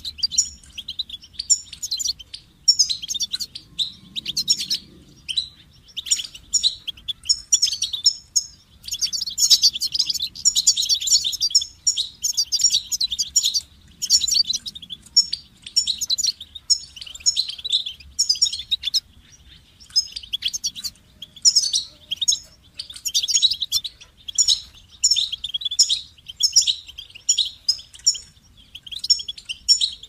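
European goldfinch singing: long runs of rapid, high twittering phrases, broken by a couple of brief pauses.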